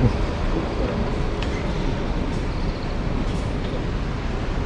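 Steady low rumble of vehicle noise, with a faint thin high tone for about half a second near the middle.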